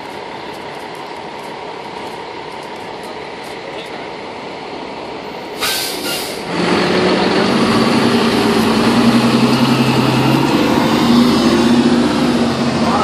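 FDNY pumper's diesel engine idling, then a sharp hiss of the air brakes releasing a little over halfway through, followed by the engine revving up loudly as the rig pulls out.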